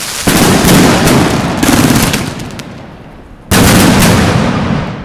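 Three loud blasts, the first just after the start, the second about a second later and the third near the end, each followed by a long rumbling decay with scattered crackles.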